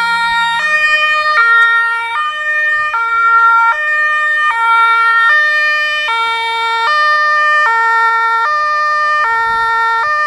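German fire engine's two-tone siren (Martinshorn) sounding, alternating steadily between a lower and a higher note, changing a little under once a second.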